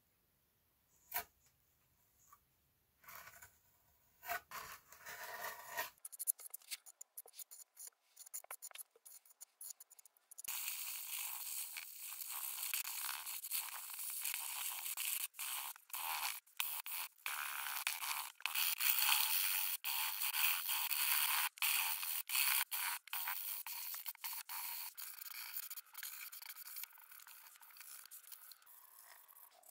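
Hand scraping on a skateboard deck: scattered taps and clicks at first, then from about a third of the way in a steady, high-pitched scraping broken by many short pauses between strokes.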